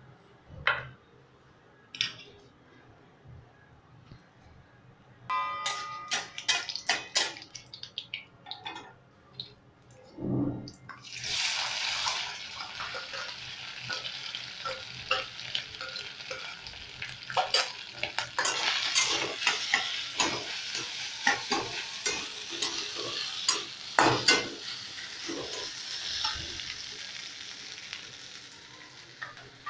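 A steel spoon clinks and scrapes mashed potato out of a steel bowl, with metallic ringing taps. From about eleven seconds in, a steady sizzle of hot oil in a kadhai starts, with the spatula scraping the metal pan as the potato is stirred and fried with mustard seeds and curry leaves.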